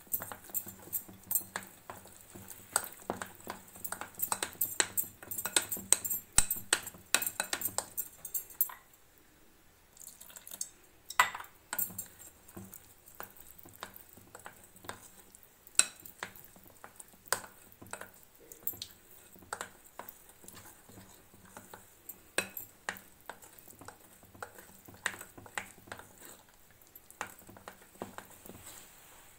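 A utensil stirring cake batter in a glass bowl, clicking and scraping against the glass in quick strokes. The stirring is fast and dense at first, stops briefly about nine seconds in, then carries on more lightly.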